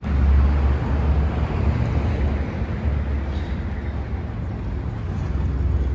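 Outdoor urban ambience with a loud, steady low rumble, loudest in the first second.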